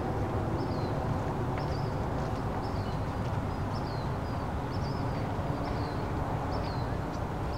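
A bird repeats a short, high, falling chirp more than once a second over a steady low outdoor rumble.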